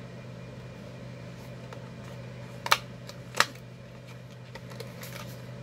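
Cardboard-and-plastic packaging of a wall charger being handled while it is opened: two sharp clicks about two-thirds of a second apart, with a few fainter clicks, over a steady low hum.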